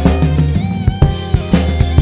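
Drum kit with Zildjian K cymbals playing a shuffle blues groove, with sharp strikes about twice a second over a bass and guitar backing.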